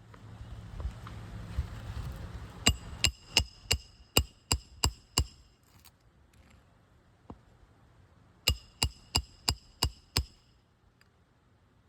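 Roofing hammer driving two nails into a new 3-tab asphalt shingle: a run of about eight quick, ringing metal-on-metal strikes, then after a pause of about three seconds about six more. Low handling noise comes before the first strikes.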